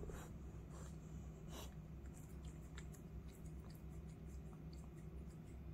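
Faint, quiet room with a steady low hum; an orange tabby cat breathes out sharply through its nose a few times, the clearest about one and a half seconds in.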